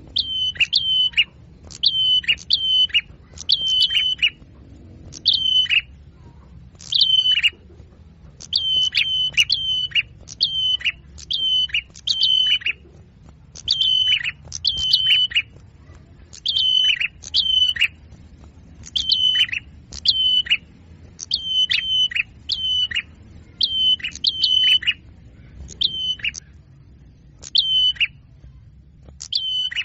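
Small songbird's call note repeated over and over from a bird-luring recording: short, sharp, high notes that each drop slightly in pitch, coming in quick clusters of one to four with short gaps between.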